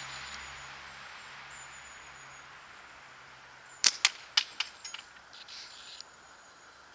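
A single catapult shot from a flat-banded multiplex slingshot: one sharp snap a little past halfway, then a quick run of four or five fainter clicks that die away within about a second, as the small ammo strikes and rattles at the target.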